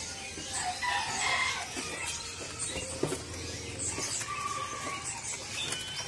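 A mixed chorus of many caged songbirds: overlapping short whistles and chirps from several birds at once, with a few sharp clicks.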